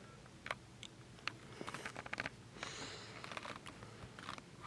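Faint scattered clicks and light rustling from someone moving about and handling things in a small enclosed space, with a brief soft hiss about halfway through.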